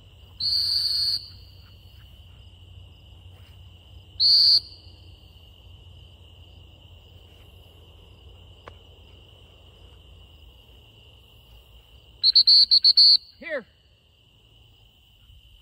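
Dog-training whistle blown by the handler: one long blast about half a second in, a shorter single blast about four seconds in, then a rapid string of short toots near the end. The single blasts are the stop whistle used to halt the retriever mid-route for a cast. Crickets sing steadily underneath.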